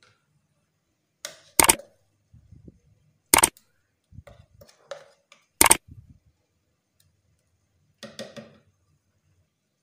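Three sharp clicks about two seconds apart, with softer, lower rustling sounds between them and a brief scuffle near the end.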